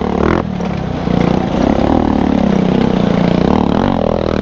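Motorcycle engine running on the move, its pitch rising and falling over a steady rush of noise.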